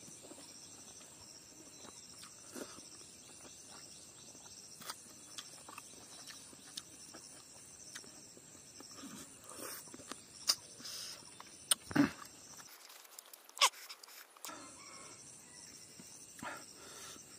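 Quiet eating by hand: chewing, lip smacks and fingers working rice on a banana leaf, with a few sharp mouth smacks in the second half. A faint steady insect buzz sits underneath.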